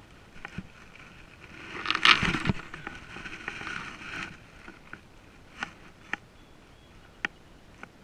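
A cast with a baitcasting fishing reel: a loud swish about two seconds in, then the spool whirring for about two seconds as line pays out, followed by a few sharp clicks from the reel as it is handled.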